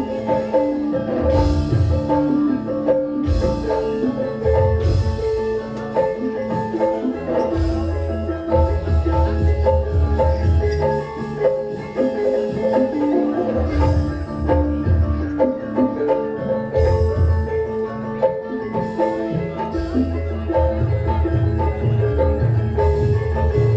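Javanese gamelan music: bronze metallophones ring repeating melodic notes over heavy, booming low drum beats, played loud through an amplified sound system.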